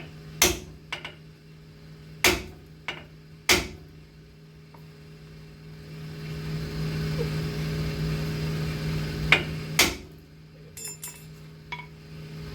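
Hammer blows on a loaded ball joint press, tapping to shock the seized ball joint out of the control arm. There are five sharp metal strikes in the first four seconds and two more close together near the end, over a steady low hum.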